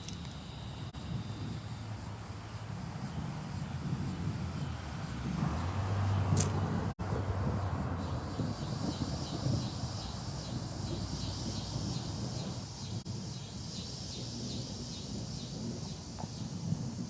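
Severe-thunderstorm wind gusting hard and buffeting the microphone: a low rumbling that swells to its strongest about six seconds in, then eases a little.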